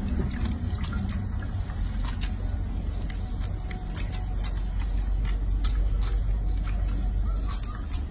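Water scooped by hand and poured over a small monkey in a sink basin, splashing and trickling back into the bath water in scattered small splashes and drips. A steady low rumble runs underneath.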